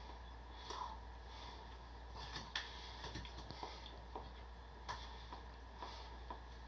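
A man chewing bread: faint, scattered mouth clicks and smacks, the sharpest about two and a half seconds in and just before five seconds, over a low steady hum.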